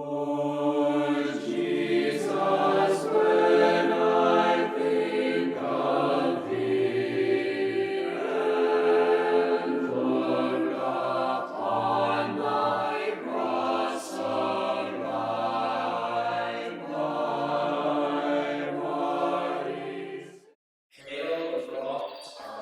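Choir singing sacred chant a cappella, long held notes in several voices at once, breaking off about twenty seconds in.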